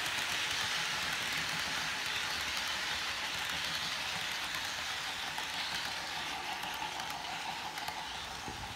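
Model freight train's cars rolling past on the track: a steady rushing clatter of metal wheels on rails, growing a little quieter near the end as the last cars go by.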